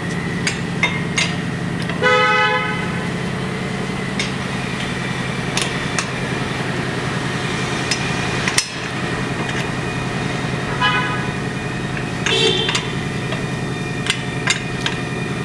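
Lug wrench clinking against the wheel's lug nuts as they are tightened down, a few sharp metal clicks over a steady hum. Three short pitched toots sound, the first about two seconds in and two more near the end.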